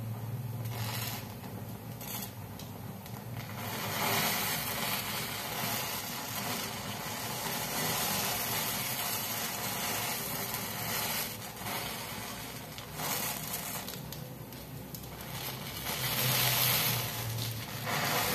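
A bundle of wooden matchsticks burning in a tall flame, giving a dense crackling and rushing noise that swells and fades several times.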